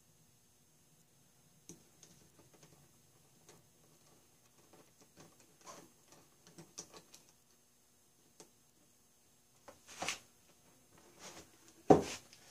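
Faint scattered metal clicks and scrapes of a small screwdriver working screws on a Stuart Sirius model steam engine's cylinder head. Near the end come two louder knocks, the second the loudest, as the engine is handled on the bench; the close-fitting head is fighting its fit on the studs.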